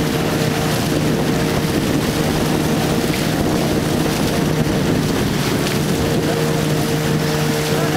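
A longboat's engine running at a steady speed, with water rushing past the hull and wind noise on the microphone.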